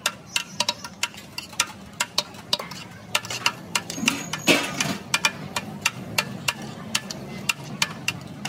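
Metal serving scoop clinking and scraping against the inside of a large metal biryani pot (degh) as rice is dug out and served, in quick irregular clicks several times a second. A louder burst of noise comes about halfway through.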